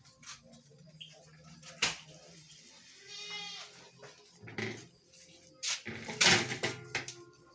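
An animal's short, wavering, high-pitched cry about three seconds in, among scattered knocks and a loud rustling burst near the end.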